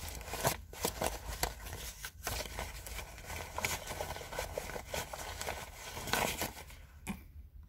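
Paper banknotes rustling and crinkling as a stack of cash is flipped through and counted by hand, with many quick crisp flicks. The rustling fades out shortly before the end.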